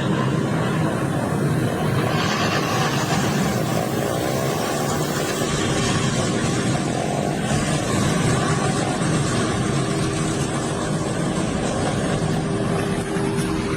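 A group of motorcycle engines running loudly together, a dense, unbroken din of engine noise.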